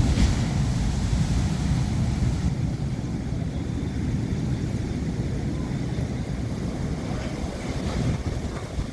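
Wind rumbling steadily on the microphone at the seashore, with surf from the sea.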